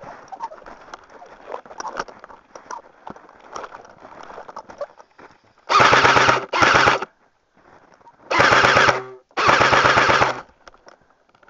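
Four full-auto bursts from an airsoft gun: two short bursts close together, then two longer ones about a second apart, each a rapid stream of shots. Before them, footsteps crunch in snow.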